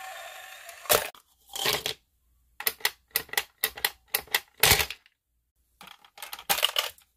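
Small plastic toy mechanisms. A coin-stealing money box's motor whirs briefly and its lid snaps shut with a click. Then comes a quick run of sharp plastic clicks and rattles, about three a second, from a candy-holding grandma toy as its button is pressed, and near the end coins click into a toy vending machine.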